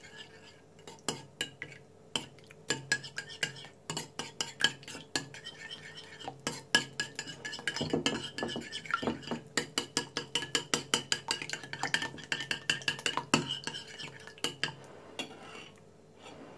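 Metal utensil beating egg, olive oil and yogurt in a porcelain bowl, clinking rapidly and repeatedly against the bowl's side. The strokes come fastest in the middle and thin out near the end as the mixture turns smooth.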